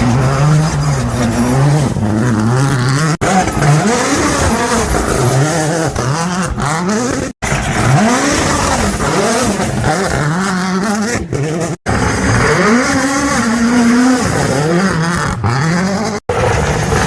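Rally cars with turbocharged four-cylinder engines passing one after another through a water splash, each engine revving up and falling back through gear changes. The sound cuts abruptly to the next car four times.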